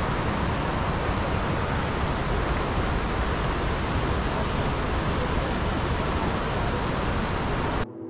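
Steady rushing roar of river water pouring over rock slabs, cutting off abruptly near the end.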